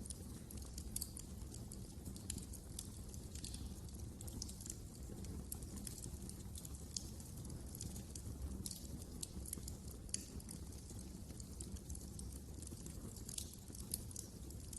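Wood fire crackling in a fireplace: irregular sharp snaps and pops over a steady low rumble of the burning fire.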